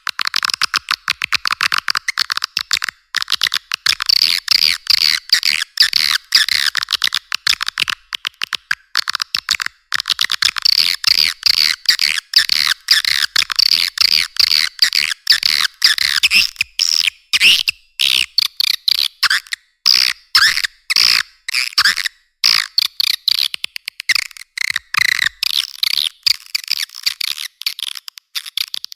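Edible-nest swiftlet calls: a dense, unbroken stream of rapid high chirps and clicking twitters. It is a recorded lure call of the kind played from swiftlet houses to draw the birds in to roost and nest.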